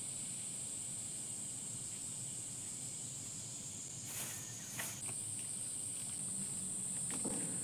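Steady, high-pitched drone of summer insects, with two brief plastic-bag rustles about four and five seconds in.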